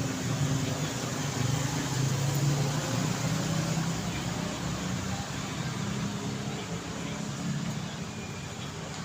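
City street traffic: a vehicle's engine hum over steady tyre and road noise, loudest about two seconds in, then easing off.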